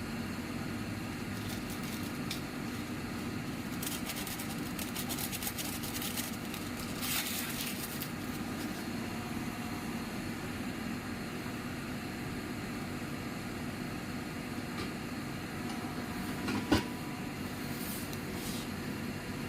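Steady hum of a running microwave oven, with a spell of faint crackling about four to eight seconds in and a single sharp click near the end.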